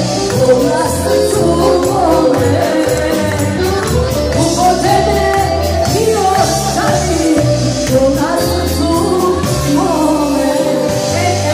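Live band music played loud through a PA: a woman sings into a microphone over electric guitar and deep bass notes, with a steady beat of high ticks on top.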